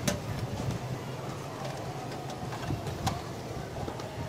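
Two sharp clicks about three seconds apart, with a few fainter ticks, as the plastic connectors on motorcycle battery leads are handled. A steady low hum runs underneath.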